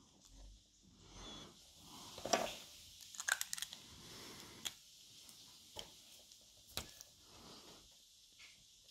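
Faint pen scratching on sketchbook paper with scattered small clicks and taps as pens are handled: a black pen is set down and a white gel pen picked up. The clicks are sharpest around the middle.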